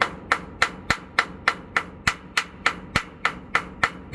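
Hand hammer striking metal in a steady, even rhythm, about three to four blows a second, knocking loose corrosion buildup on a truck's aluminum frame.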